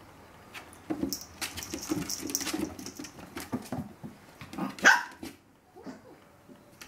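Chihuahua puppy giving short barks and yips as it plays, the loudest a sharp bark about five seconds in, amid scuffling and clicks on the wooden floor.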